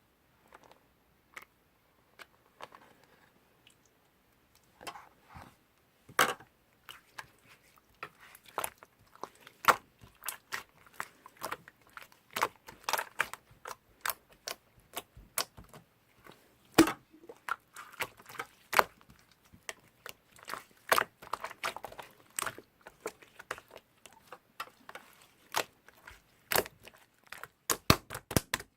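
Apricot-coloured slime being squished and kneaded by hand, giving irregular sticky clicks and crackling pops, sparse at first and then coming thick and fast from about six seconds in.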